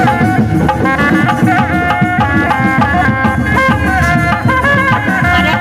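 Traditional Javanese kuda lumping music: rapid hand-drum strokes under a melody of held, stepping notes, playing steadily.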